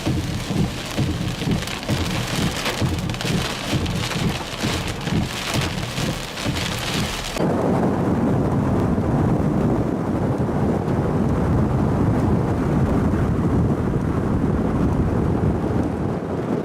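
Heavy thunderstorm rain pelting a vehicle in a dense, crackling patter. About seven seconds in, it changes abruptly to a steadier, duller low rush.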